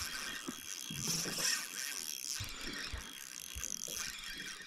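Fishing reel clicking and ratcheting while a hooked bream is played on light line, with a few scattered low knocks.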